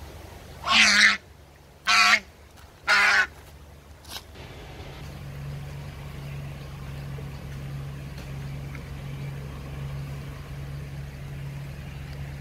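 A domestic goose, hanging upside down by its legs in a person's grip, honks three times about a second apart: loud, harsh alarm calls of a restrained bird. After the calls a steady low hum carries on.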